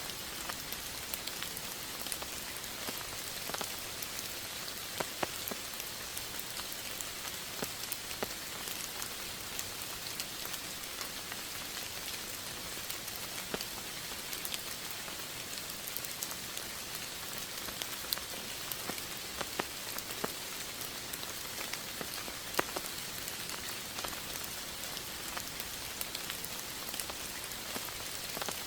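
Steady rain falling, an even hiss with scattered distinct drop hits.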